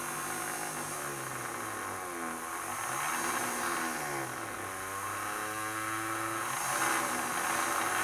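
Small brushed DC motors driven through an L298N motor driver, whirring with a pitch that rises and falls several times as their speed is varied with a potentiometer, over a high hiss.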